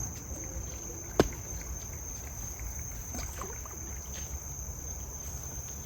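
Steady high-pitched insect trill, with a single sharp click about a second in and a few faint ticks.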